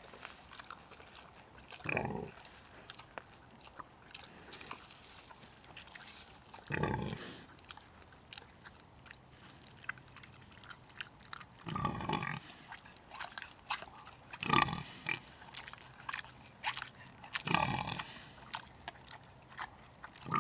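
Tamworth pig rooting and feeding in frost-covered soil: short grunts about five times, a few seconds apart, with many small chewing and crunching clicks between them.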